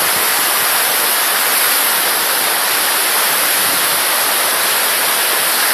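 Fast mountain stream rushing over big stones: a loud, steady rush of water.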